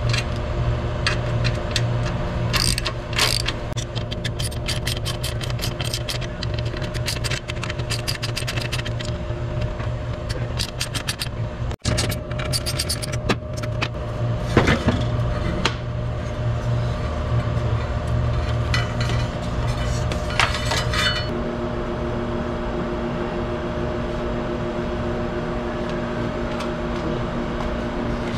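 Socket ratchet clicking in quick runs of strokes as the mounting nuts of an air conditioner's condenser fan motor are undone, over a steady machine hum. The clicking stops about three-quarters of the way through, leaving only the hum.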